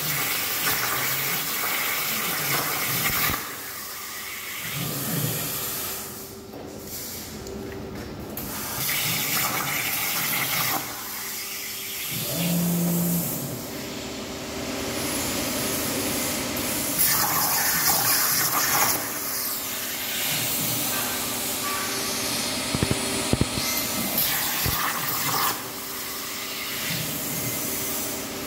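Izumi Cut 40 inverter air plasma cutter hissing steadily as the CNC torch cuts 1 mm plate, the hiss dropping in level and returning a few times. Short steady motor tones start and stop underneath as the machine moves the torch.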